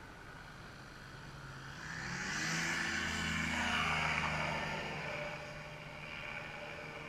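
Engine and propeller of an ultralight weight-shift trike flying past. It builds up, is loudest about four seconds in, then fades with its pitch dropping slightly as it goes by.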